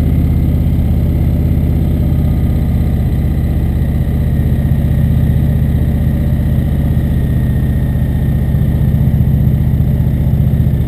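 Indian motorcycle's V-twin engine running steadily at low road speed, its even low engine note the loudest thing throughout.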